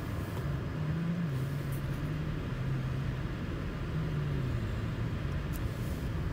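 Car engine hum and road noise inside the cabin of a slowly moving car, the low engine tone rising and falling slightly in pitch.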